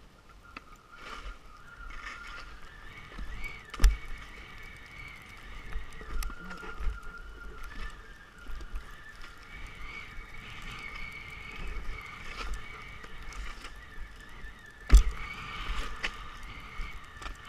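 Skis sliding and scraping over snow through a glade: a steady hiss with a faint wavering whine, broken by two sharp knocks, one about four seconds in and one near the end.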